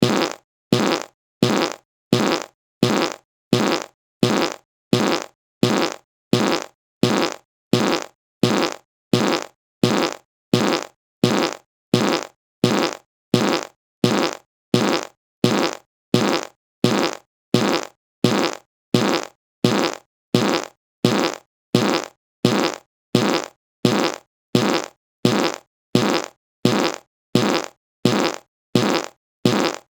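A short fart sound, repeated over and over at an even pace, about three every two seconds, each blast identical with silence between.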